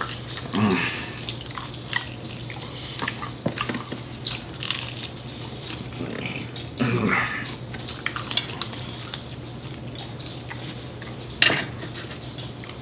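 People eating fried chicken wings: chewing with scattered clicks and knocks from handling the food and dishes, over a faint steady hum.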